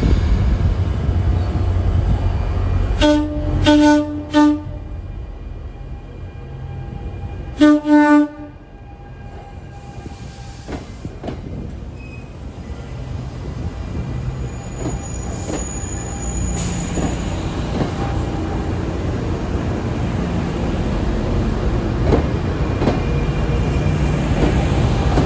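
Train horn sounding two groups of short toots, then an NJ Transit Arrow III electric multiple-unit train rolling past with a low rumble that grows louder, its wheels clicking over the rail joints.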